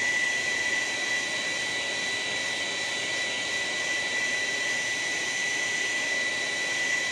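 Handheld hot-air dryer running steadily, with a high, steady whine over the rush of air, drying wet paint.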